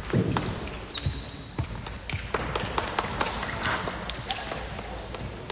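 Table tennis balls clicking on tables and bats, a scatter of sharp, irregular knocks from several games at once.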